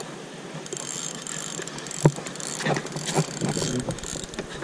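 Spinning reel being cranked to wind in a hooked fish, its gears and ratchet clicking quickly, with a single sharp knock about two seconds in.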